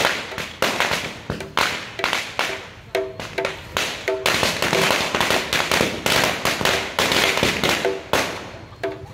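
Burning sokkapanai bonfire of piled palm fronds crackling and popping in a rapid, irregular run of sharp cracks and bangs, like firecrackers going off.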